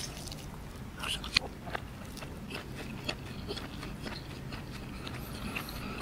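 Close-miked eating: biting into and chewing a roti canai flatbread with egg. Wet mouth clicks and smacks, with a short cluster of sharper clicks about a second in.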